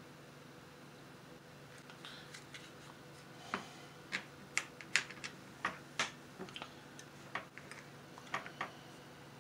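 Small sharp plastic clicks and taps, about a dozen at uneven intervals from about two seconds in: hard styrene model-kit parts being handled and fitted together.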